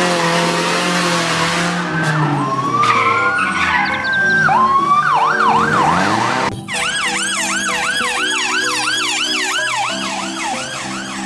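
Police siren, a fast electronic yelp sweeping up and down about three times a second, over steady children's background music. For the first six seconds or so a noisy rush with sliding tones runs before the steady yelp begins.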